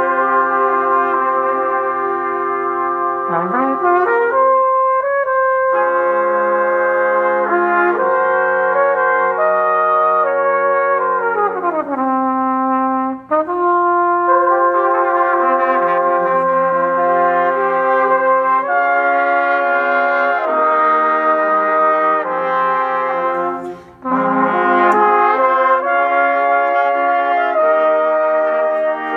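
A trumpet ensemble of trumpets and flugelhorns playing sustained chords in several parts. The chords change every second or two, with all the voices sliding down together near the middle and two short breaks in the playing.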